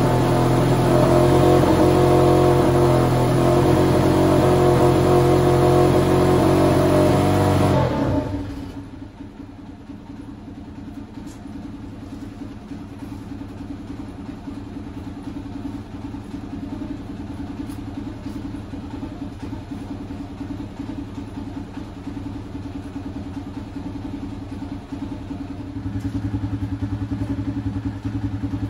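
Sazgar auto rickshaw's engine, started after its winter layoff, running at raised revs, then dropping about eight seconds in to a quieter, even idle. It runs somewhat louder again near the end.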